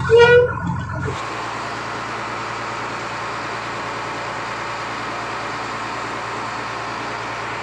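Fishing trawler's engine running steadily under way, mixed with the rush of its wake, holding one even level from about a second in. Brief music-like tones come first.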